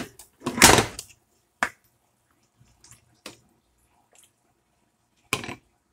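A spatula clicking against a stainless steel pan of simmering soup, with a short wet splash as sliced bell pepper is stirred in. The clicks come singly, a handful spread apart, and the splash, the loudest sound, lasts about half a second, starting about half a second in.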